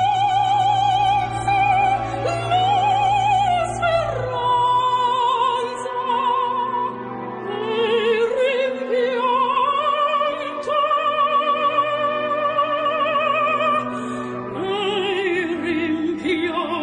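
Operatic singing: a high voice holding long notes with wide vibrato, sliding up and down between them.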